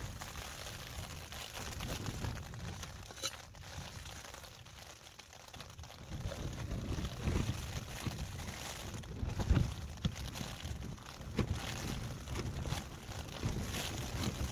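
Wind gusting against the tent, an uneven low rumble that rises and falls, with a few light knocks as a stove pot is lifted off a canister gas burner and hot water is poured into an insulated mug in the second half.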